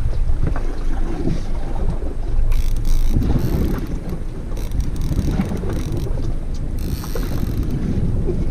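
Wind buffeting the microphone on a boat: a steady low rumble, with higher hissing gusts three times.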